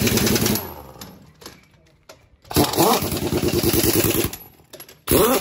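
Pneumatic impact wrench hammering in bursts, tightening the wheel nuts on a truck's aluminium wheel. There is a short burst at the start, a longer one of about two seconds in the middle that speeds up as it begins, and another near the end.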